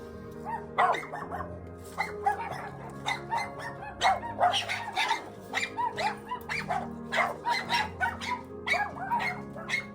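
Small dogs or puppies barking and yipping in rapid, high-pitched bursts of a few yips a second, with background music.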